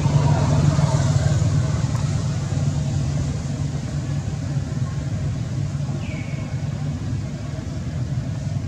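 A motor vehicle's engine running, a steady low drone that slowly fades. A short high falling chirp comes about six seconds in.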